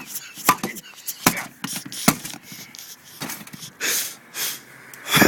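A few sharp knocks, spaced irregularly about a second apart, from blows struck at a spare tire stuck fast in a car's trunk.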